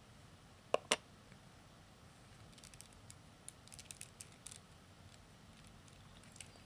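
Plastic Lego pieces being handled: two sharp clicks about a second in, then a run of small, light clicks and rattles.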